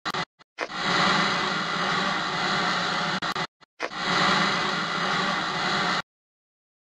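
Intro sound effect for a title card: a loud, even, static-like noise in two long stretches, each opening with a couple of brief flickers. It cuts off abruptly into silence near the end.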